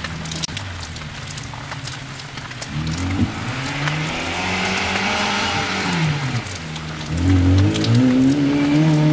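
A Lada rally car's four-cylinder engine revs up and down as it is driven hard, rising about three seconds in, falling back near six seconds and climbing again soon after. Its valve lift is being tried out. Tyre and grass noise swells in the middle.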